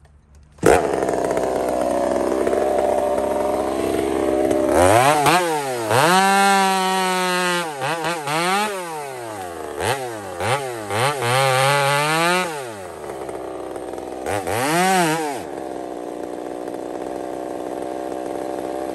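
Husqvarna 372XP two-stroke chainsaw cutting into a stump. It starts abruptly about a second in. Through the middle it revs up and down several times, its pitch rising, holding high and dropping as the throttle is opened and released, then it settles back to a steadier rough running under load near the end.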